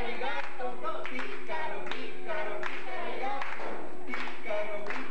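Voices singing a lively children's song together, with hands clapping along.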